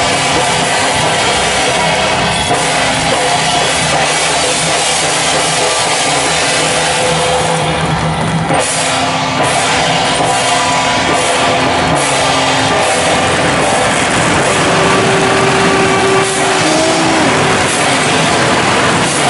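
Procession percussion band of hand-held brass gongs, cymbals and drums playing loudly and without a break.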